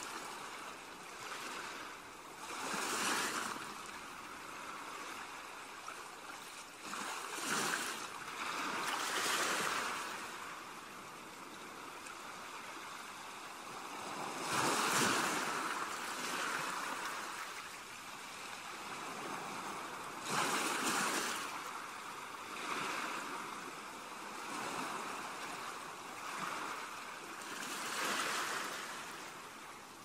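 Sea surf washing onto the shore: a steady wash of water noise that swells in about six surges at irregular intervals, each rising and falling over a second or two.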